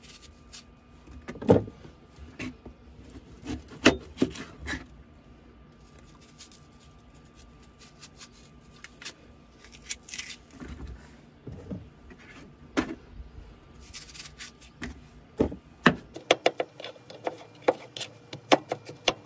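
Kitchen knife cutting watermelon, the blade tapping and knocking on the cutting board in scattered sharp clicks, with watermelon rinds dropped into a plastic basin. Near the end the knocks come quickly one after another as the flesh is cut into bite-size pieces.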